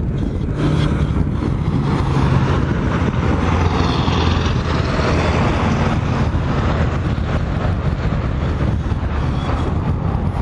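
Cat 345CL excavator's diesel engine running steadily at a work site, with road traffic going by; a vehicle passes close by near the end.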